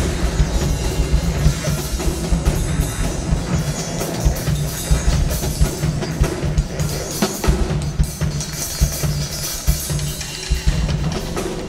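Live drum kit played in a busy pattern of kick, snare and cymbal hits over a steady low drone from modular-synthesizer electronics.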